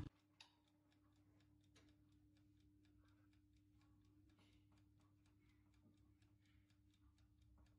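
Faint, rapid ticking of an Inalsa OTG's mechanical timer, about four ticks a second, counting down as the oven bakes, over a steady low hum.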